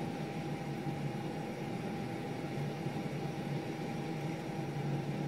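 Steady hum and hiss of running machinery, with a thin, constant whine over it.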